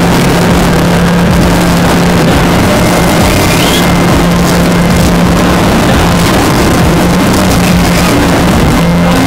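Rigid inflatable boat at high speed: its engine running steadily with a low hum, under the loud rush of wind and water.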